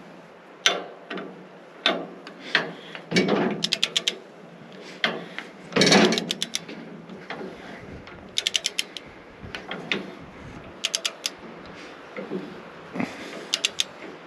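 Ratcheting torque wrench clicking in short, quick runs of several clicks, with scattered single knocks, as it tightens the blade-tension screw on a bandsaw mill.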